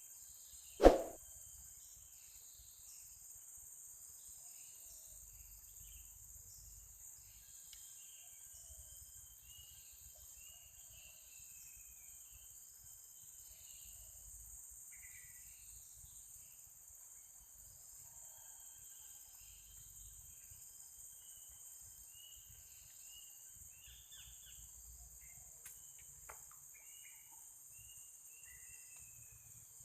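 Steady high-pitched drone of insects, with many short bird chirps scattered over it. A single sharp knock comes about a second in.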